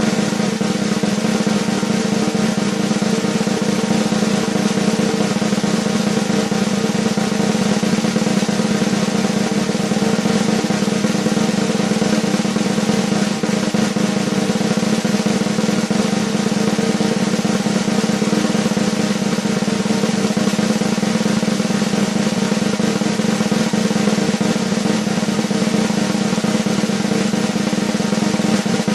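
Snare drum roll, a fast continuous roll held at a steady level without a break or crescendo.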